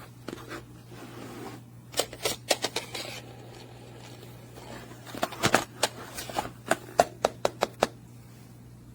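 Sharp clicks and snaps from a toddler's busy-board activity cube being worked by hand, in two runs: a handful about two seconds in, then a quicker string of about a dozen from about five seconds in.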